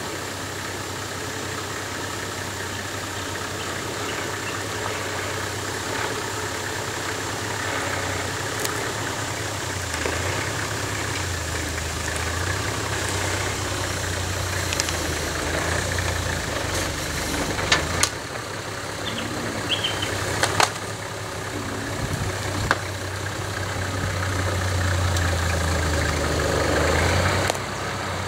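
Toyota Land Cruiser 80 series engine running at low revs as the 4x4 crawls over a rough dirt track, slowly growing louder as it comes closer. A few sharp knocks are heard about two-thirds of the way through.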